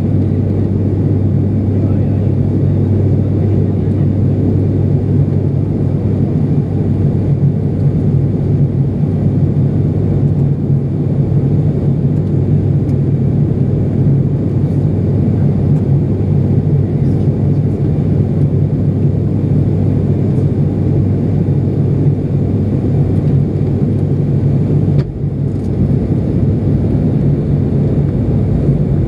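Steady low drone of an ATR 72-600's Pratt & Whitney PW127 turboprop engines and propellers, heard inside the cabin during the descent to land. The lowest note drops away about 25 seconds in, with a brief dip in level.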